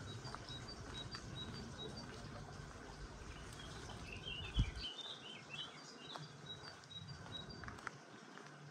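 Outdoor ambience with small birds chirping: short high chirps repeating through, and a burst of twittering for about a second and a half near the middle. A low rumble runs underneath, with a single thump about halfway.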